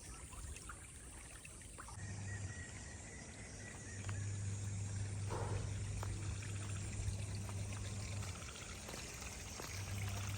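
Rainwater running off, pouring and trickling steadily, with a steady low hum from about two seconds in.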